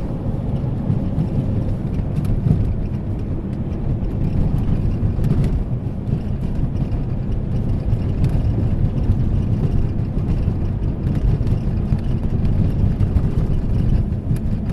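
Road and tyre noise in the cabin of a Peugeot 3008 driving over an uneven surface, with a few faint short creaks. The creak comes from the overhead seat-belt indicator panel shifting against the roof, not from the strut mount bearings.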